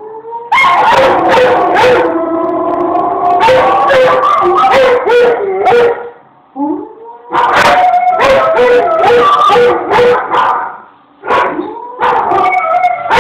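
Old English Sheepdog howling: long, wavering, pitched howls in three loud bouts, with short breaks about six and eleven seconds in.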